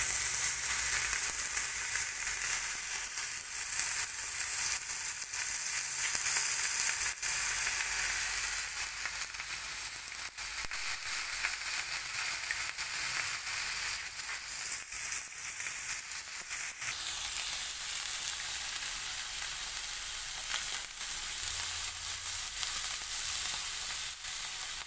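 Thick beef steak sizzling as it sears on its freshly flipped second side in a hot oiled frying pan: a steady hiss with frequent small pops and crackles from the spitting fat.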